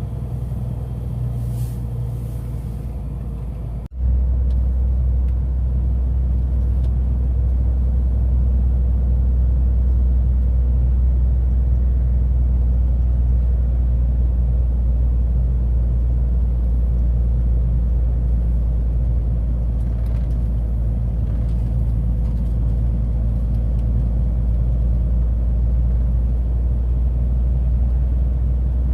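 Heavy truck's steady, deep engine and road rumble. It breaks off sharply about four seconds in and comes back louder.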